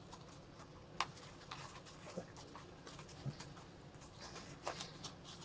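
Straps and fabric of a camouflage tactical vest being handled as a pouch strap is threaded through its webbing: faint rustling with a few light clicks, the sharpest about a second in.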